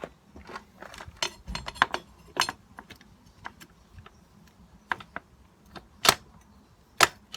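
Irregular metallic clicks and clinks of hand tools on the brake caliper mounting bolts as they are nipped up, with two sharper knocks near the end.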